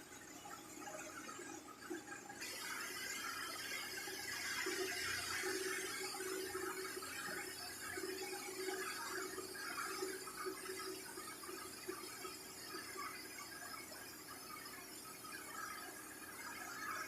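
Lathe machining, with high, wavering tones over a steady hiss that grows louder about two seconds in.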